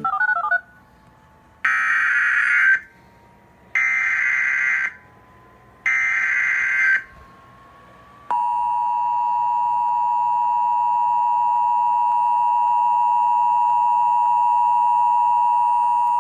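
Emergency Alert System header: three bursts of SAME digital data tones, each about a second long with a second's gap between them, then the steady dual-tone EAS attention signal, held for about eight seconds. It marks the start of an emergency alert broadcast.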